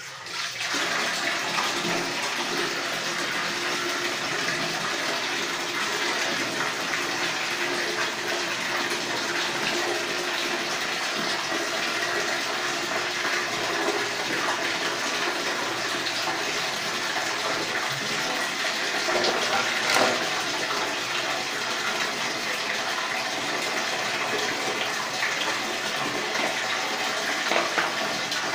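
Tap water running steadily into a container as it fills. It starts suddenly and runs on at an even level.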